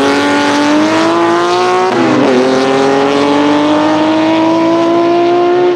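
Porsche 906 Carrera 6's two-litre, naturally aspirated flat-six race engine pulling hard under acceleration. Its pitch climbs steadily, dips with a quick upshift about two seconds in, then climbs again until another upshift at the very end.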